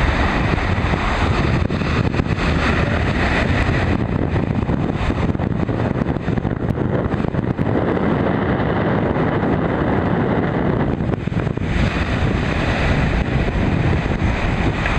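Waves breaking on a sandy beach with wind buffeting the microphone: a steady, loud rush of noise, heaviest in the low end, turning duller for a few seconds in the middle.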